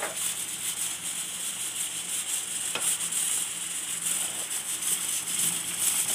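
Ladle stirring rice and green peas in water in an aluminium pot over a steady hiss, with one light click a little before halfway.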